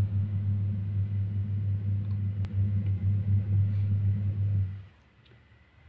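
A steady low hum or rumble that cuts off suddenly about five seconds in.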